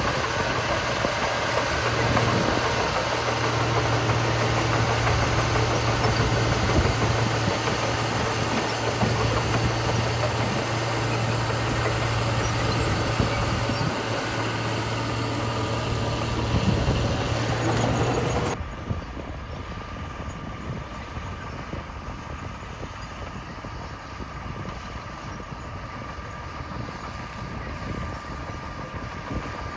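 Heavy diesel construction machinery running steadily with a deep engine hum. About two-thirds of the way through, the sound drops suddenly to a quieter, more distant engine drone.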